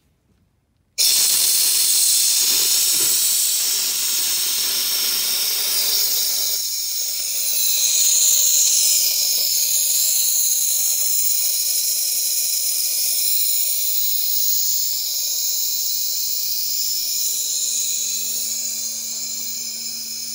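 High-pressure test gas, held at about 8,000 psi, venting through a gas booster rig's pressure release port as the isolation valve is opened: a loud hiss that starts suddenly about a second in and eases slowly toward the end as the pressure bleeds down.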